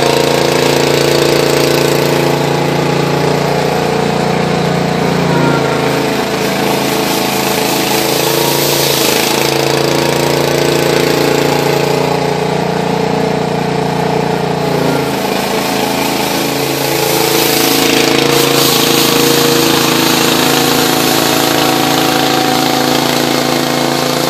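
Vintage garden tractor engine running steadily under load while driving a Sweepster C-48 power broom sweeping snow, the rotating broom adding a steady rushing hiss. The engine note shifts a couple of times as the load changes.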